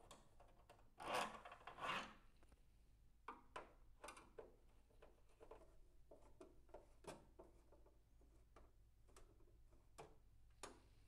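Screwdriver backing long screws out of a SkiErg's plastic flywheel cover: two rasping rubs of thread against plastic about a second in, then scattered light clicks and taps while the screws are worked free.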